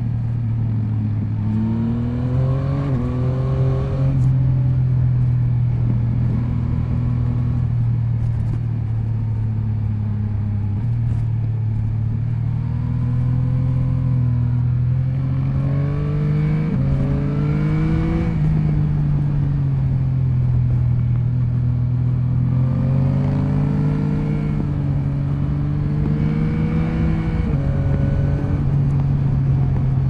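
Yamaha MT-09 SP's inline three-cylinder engine under way, with wind noise. The revs climb in several pulls, about two seconds in, around the middle and again past two-thirds of the way through, dropping back between them.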